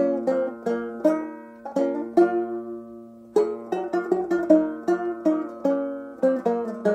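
Resonator banjo played solo, fingerpicking a medieval-style melody with a low string ringing beneath it. About two seconds in the notes are left to ring and fade, and quicker picking resumes about a second later.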